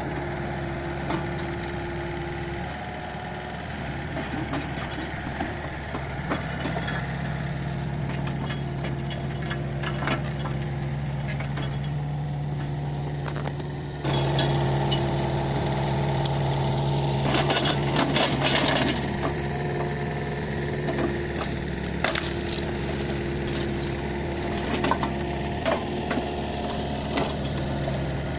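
Kobelco SK 50 P mini excavator's diesel engine running steadily while it works, with scattered metallic clinks and knocks. About halfway through the engine gets louder as it takes on load, and a few seconds later comes a short burst of rattling and scraping.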